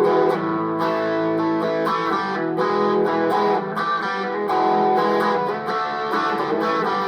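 Electric guitar played through a Behringer overdrive pedal with the gain maxed out, into a Marshall MG15DFX amp on its clean channel: distorted chords and notes, with a new attack about every half second.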